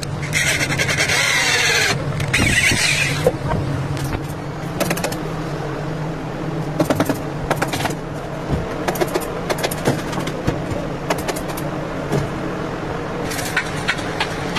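Electric drill boring into a wooden chair frame in two short spells near the start, followed by scattered sharp clicks and knocks of hand assembly work, over a steady low hum.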